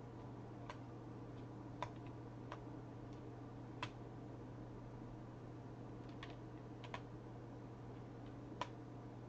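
Scattered single clicks of computer keys, one every second or two at uneven spacing, over a steady low hum.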